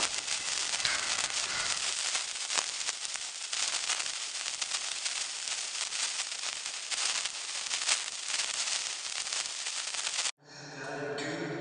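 A sparkler burning close up: a steady fizzing hiss thick with fine crackles. It cuts off suddenly near the end, and a pitched sound follows.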